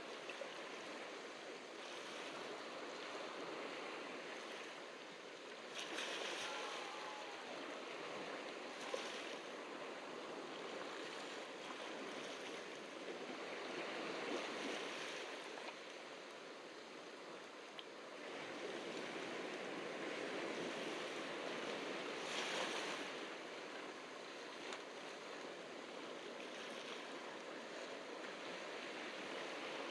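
Ocean waves breaking and washing onto the beach, a steady surf wash that swells with louder breaks about every eight seconds.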